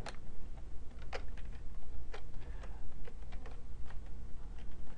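Computer keyboard keys being pressed in an irregular run of clicks as text is entered into a file.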